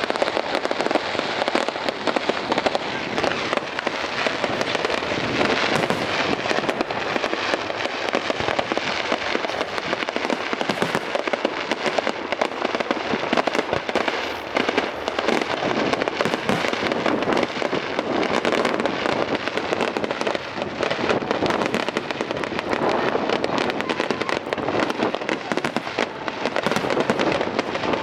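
Aerial fireworks display going off in a dense, continuous barrage of bangs and crackling, with no pause between bursts.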